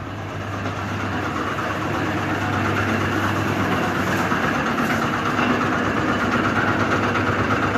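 Steady whooshing machine noise over a low hum, growing louder over the first few seconds and then holding.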